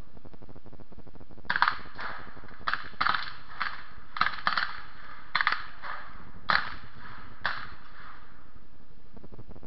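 A ragged string of about a dozen shots from black-powder firearms on a firing line, some in quick pairs and triplets, spread over about six seconds.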